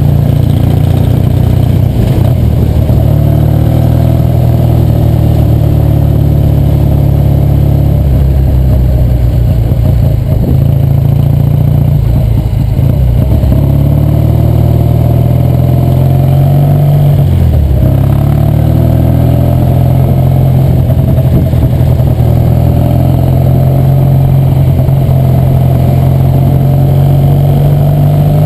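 1966 Triumph TR6R Trophy's 650cc vertical-twin engine running under way, its note rising and falling with the throttle. About two-thirds of the way through, the pitch drops sharply and then climbs again.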